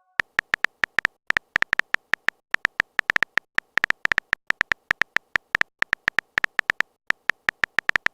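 Phone keyboard typing sound effect: a rapid, uneven run of short clicks, about five or six a second, as a chat message is typed out.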